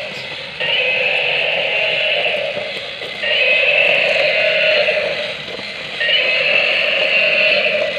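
Battery-powered walking toy elephant: its gear motor whirs steadily as it walks, while its built-in sound chip plays a tinny electronic phrase through a small speaker three times, each about two seconds long with short gaps between.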